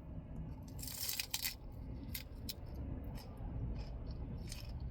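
Light clicks and clinks of food containers and utensils being handled while toppings go onto the tacos, busiest about a second in, over a steady low rumble.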